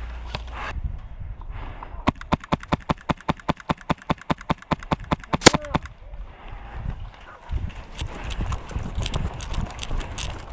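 An airsoft rifle firing a rapid string of about thirty shots, roughly eight a second, for about three and a half seconds starting two seconds in. This is followed by irregular rustling and knocking.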